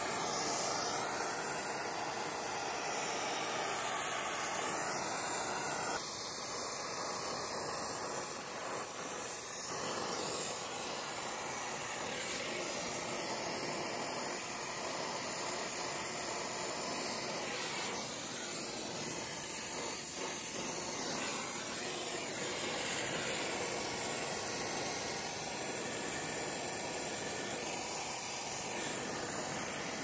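Oxy-acetylene brazing torch flame hissing steadily while brazing copper refrigerant line joints; its tone thins slightly about six seconds in.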